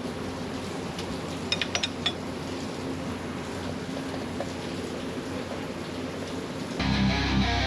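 Steady workshop hum with a few quick metallic clinks of hand tools about a second and a half in; rock music with electric guitar starts near the end.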